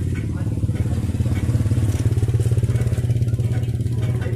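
A vehicle engine idling close by, a steady low throb that holds without revving.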